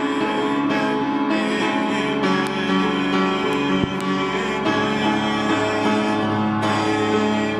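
Instrumental music: held chords that change every second or two, with a plucked-string sound.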